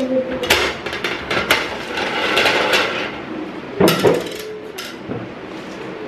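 Hard clear acrylic organizer parts clicking and knocking against each other as they are fitted together by hand. There are a few sharp clicks in the first second and a cluster of knocks about four seconds in, with scraping and rustling between them.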